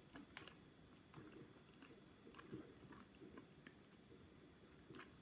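Faint chewing of food, close to the mouth, with small irregular mouth clicks.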